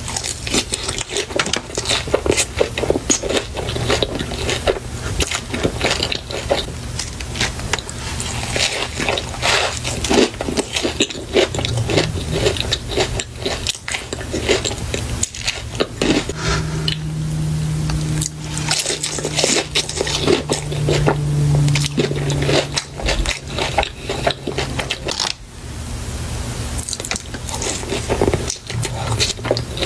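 Close-miked eating of crispy fried chicken: rapid crunching bites and wet chewing, with a low steady hum that comes in for several seconds past the middle.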